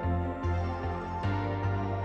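Background music: soft ambient synthesizer chords over a bass line that changes note about every half second.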